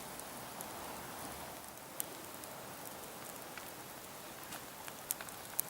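Bonfire of garden pruning debris burning: a steady hiss with scattered sharp crackles and pops, a few louder ones near the end.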